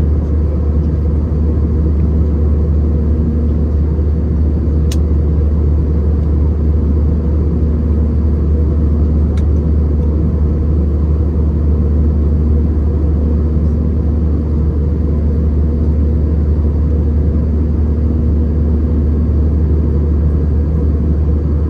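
Steady low drone inside an Airbus A319-111's cabin in flight, from its CFM56 engines and the airflow, with a faint hum that comes and goes and a couple of tiny clicks.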